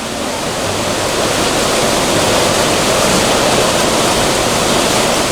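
Fast-running stream water rushing steadily: a loud, even wash of moving water.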